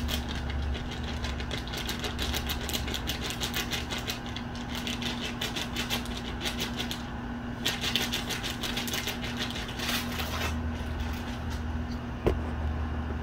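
Rapid scratching, a fast run of small scratches in two long spells with a short break in the middle, over a steady low hum.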